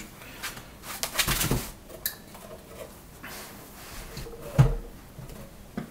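Foam packing blocks being lifted and set down on a desk: scattered rubbing and light knocks, with the loudest thump a little over four and a half seconds in.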